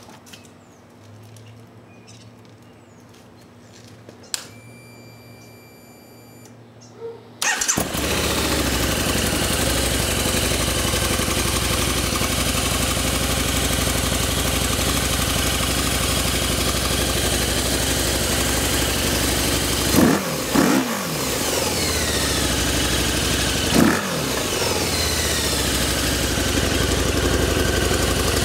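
Harley-Davidson V-Rod's liquid-cooled V-twin on its stock exhaust: after a faint brief whir, the engine starts about a quarter of the way in and idles steadily, with two quick throttle blips later on.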